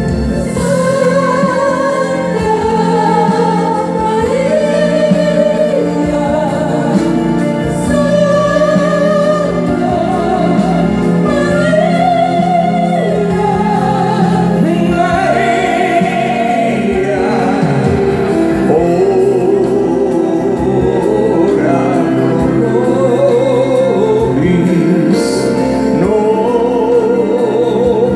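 Live band music with sung vocals, the singing wavering in pitch with vibrato over a steady accompaniment, heard from among the audience.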